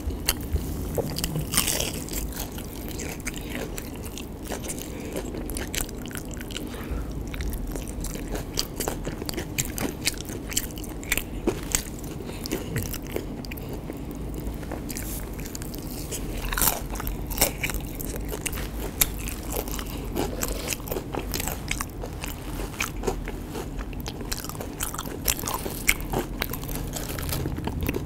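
Close-up crunching and chewing of crispy battered fried cempedak fritters, with sharp, irregular crackly crunches scattered throughout.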